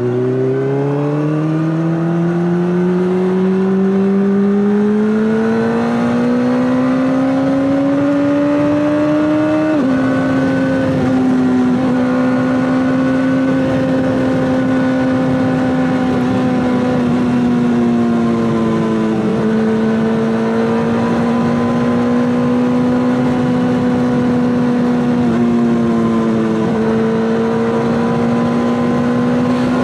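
Honda CBR600RR inline-four engine through an Akrapovic exhaust, pulling steadily up through the revs for about ten seconds. The pitch then drops suddenly at a gear change, and the engine holds a steady high pitch with two brief dips.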